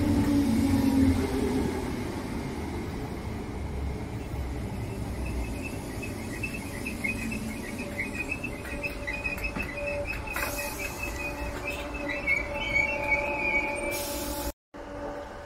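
Merseyrail electric train on the Wirral line: a low rumble of the train running that eases after the first couple of seconds, then a wavering, high-pitched squeal of the wheels on the rails from about five seconds in. The sound cuts off abruptly near the end.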